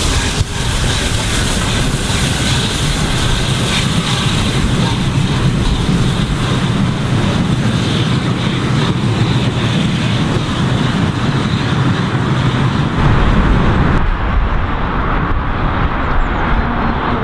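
Three-cylinder Peppercorn A1 Pacific steam locomotive 60163 Tornado passing at speed with its train, a loud steady rumble and hiss of exhaust and running gear. About fourteen seconds in the hiss drops away, leaving the rumble of the coaches rolling over the rails.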